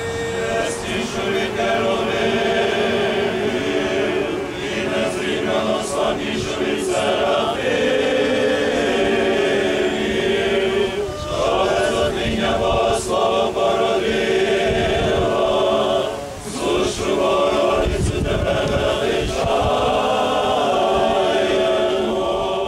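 A choir singing a slow, unaccompanied funeral chant of the Byzantine rite, in long held phrases with brief pauses between them.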